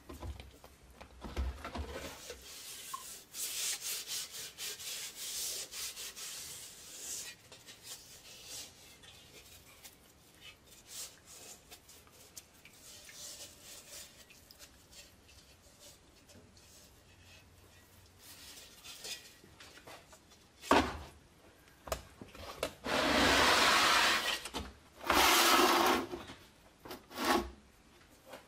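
Gloved hands rubbing and scrubbing a rusty steel helmet in a plastic tub of liquid: scratchy rubbing with small clicks and splashes. Later comes a sharp knock, then two loud rubbing noises about a second long each, as the helmet on its plastic lid is handled on a metal workbench.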